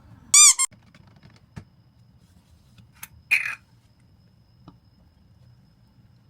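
A short, high-pitched squeak about half a second in, a light click, then a second, rougher squeak about three seconds in, over a faint low hum.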